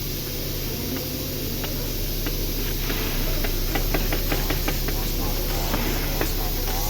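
Range Rover Evoque running with a steady low drone, through which comes a run of sharp knocks, a few a second, bunching up in the middle. This is the knock being tracked down, which the owner traces to a spun intermediate (carrier) bearing on the right driveshaft.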